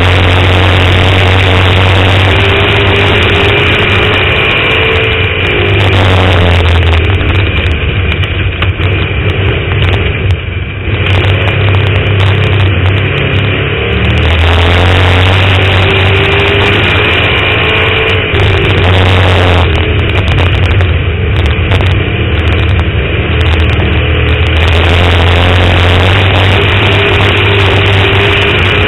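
Dirt-track race car's engine running hard at high revs, heard from on board the car. It swells and eases in waves every several seconds as the throttle comes and goes.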